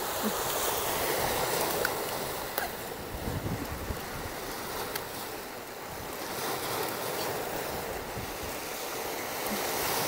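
Sea waves washing on the shore in a steady hiss, with wind buffeting the microphone in low gusts, strongest a few seconds in.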